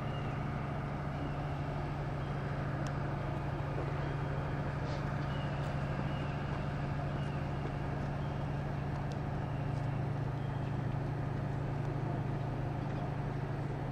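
A steady low engine hum that holds an even pitch throughout, with faint scattered ticks.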